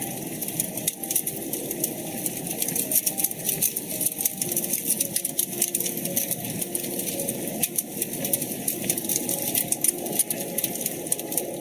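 Wood fire crackling in a fireplace: a dense, irregular run of small sharp pops and snaps over a steady low rush.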